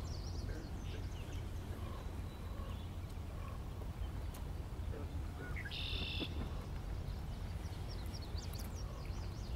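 Marsh birdsong: a songbird gives one short, high buzzy trill about six seconds in, and scattered high chirps from other small birds come over a steady low rumble.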